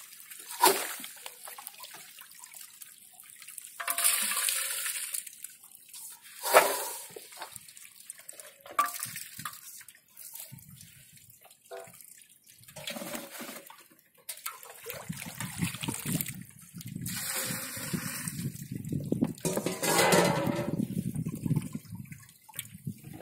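Water sloshing, splashing and pouring in spells as a steel bowl scoops water and small fish from a fine-mesh net and tips water back out, with a couple of sharp splashes.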